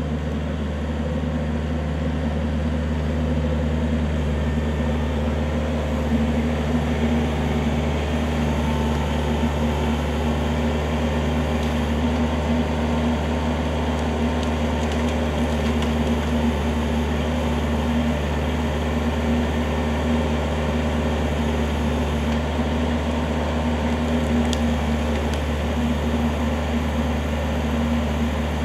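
Kubota L4400 tractor's diesel engine running steadily at a constant speed, a low, even hum that neither rises nor falls.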